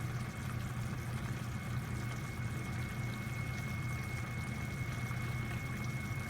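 A steady low hum with a thin, faint high tone held over it, unchanging throughout.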